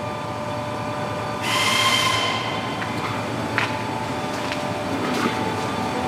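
Steady hum of heavy industrial machinery with several high, steady whining tones. A loud hiss with a shrill tone comes in about a second and a half in and lasts about a second and a half, and a couple of sharp clicks follow later.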